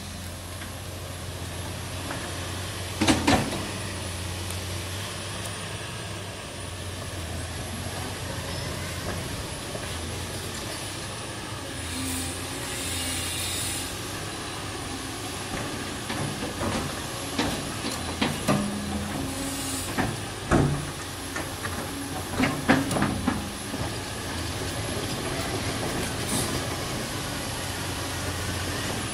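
Caterpillar 329D hydraulic excavator's diesel engine running steadily while it works a screening bucket, with sharp knocks and clatter of stones and steel, loudest about three seconds in and several times in the second half.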